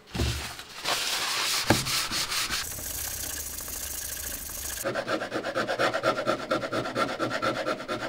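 A cloth rubbing and scrubbing over the plastic base of a computer case. About five seconds in it changes to fast, rhythmic back-and-forth scrubbing with a pitched squeak in each stroke, as a cloth-wrapped tool works at a stain.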